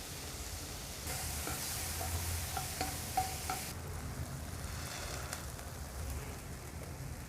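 Food sizzling in a hot pan while a utensil stirs and scrapes it. The sizzle is strongest for a couple of seconds and eases off after about three and a half seconds.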